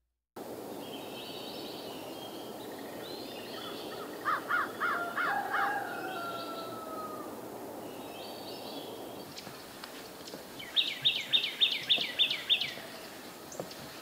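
Wild birds calling over a steady outdoor background: a run of about five calls a few seconds in, then a faster run of about eight higher-pitched calls near the end.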